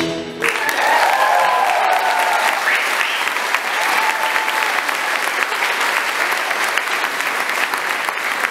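A gospel choir's final sung chord breaks off about half a second in, followed by steady applause from the audience and the choir, with a few voices calling out in the first couple of seconds.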